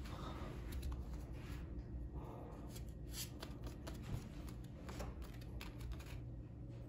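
Faint, scattered rustles and light ticks of handling, as of paper cards or the phone being moved, over a steady low hum in a small room.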